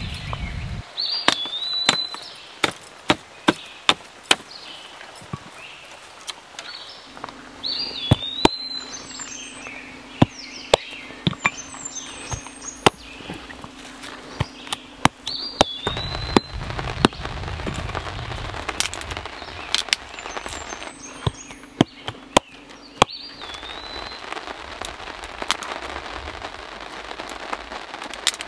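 Dry sticks and twigs being snapped by hand, a long series of sharp, irregular cracks. A bird sings a short rising-and-falling phrase several times in between.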